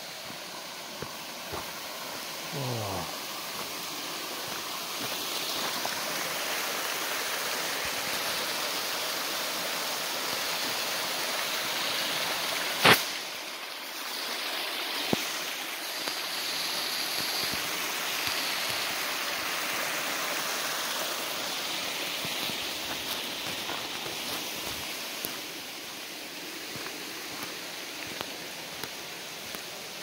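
Steady rush of a creek and waterfall, swelling over the first few seconds and easing off toward the end, with scattered footsteps on the rocky track. One sharp knock stands out about halfway through, and a short falling tone sounds a few seconds in.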